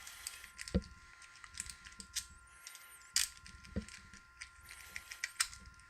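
Lock-pick rake scraping and clicking over the pin tumblers of a Master Lock No. 1 padlock held under a tension wrench: irregular small metal clicks and scratches, with a handful of sharper clicks.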